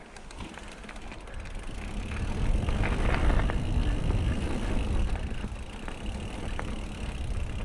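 Mountain bike rolling over a loose gravel and dirt trail: tyre crunch and rattle of the bike with a few sharp clicks of stones. A low rumble grows louder about two seconds in as the bike picks up speed.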